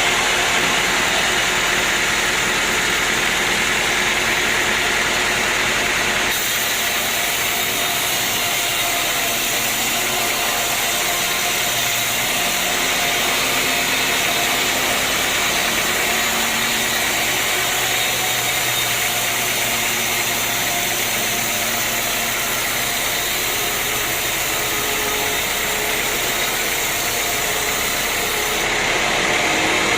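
Sawmill machinery running steadily: a constant motor hum with a steady hiss above it, its tone shifting slightly about six seconds in.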